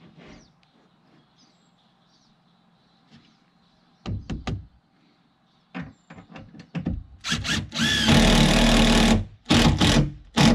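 Cordless drill running into a wooden nesting box: a few knocks about four seconds in, then a loud burst of about two seconds whose motor whine rises as it spins up, and a shorter burst near the end.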